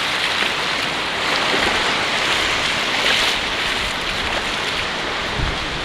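Sea waves washing on the shore: a steady rush of surf that swells briefly about three seconds in.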